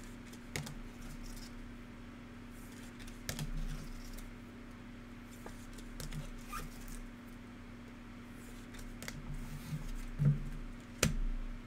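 Trading cards handled by hand: scattered light clicks, taps and slides as cards are picked up, shuffled and set down on the table, with a few sharper taps near the end, over a steady low hum.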